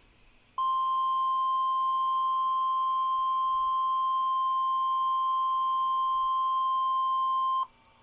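Emergency Alert System attention tone: a single steady tone of about 1 kHz, the weather-radio style alert tone. It starts abruptly just after the beginning and cuts off after about seven seconds. It signals the start of a broadcast Tornado Watch alert.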